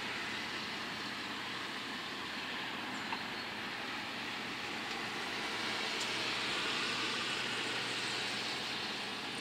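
Steady outdoor background rumble and hiss, swelling a little to its loudest about six to eight seconds in, with a faint click about three seconds in.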